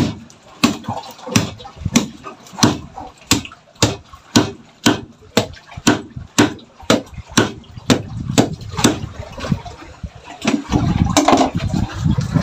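Machete blade chopping repeatedly through a marlin's bill laid on a wooden block, sharp strikes about two a second. Near the end the chopping gives way to a low rumbling noise.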